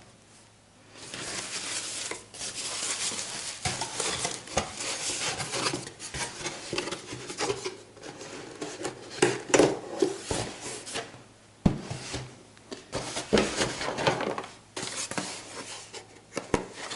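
Plastic packaging rustling and small hard parts clicking and clattering as a box's contents are handled, starting about a second in.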